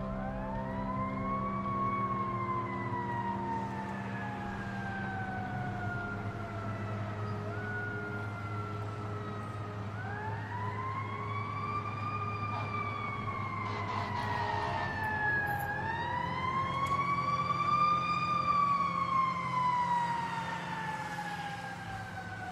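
Siren wailing: its pitch climbs for a couple of seconds, then sinks slowly over several more, starting again about ten seconds in and once more about sixteen seconds in, over a steady low hum.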